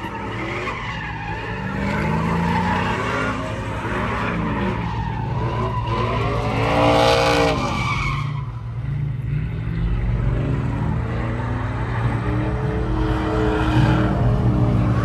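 Car engines revving hard and tires spinning and squealing on asphalt during burnouts and donuts. About halfway through, an engine's pitch climbs and then falls away.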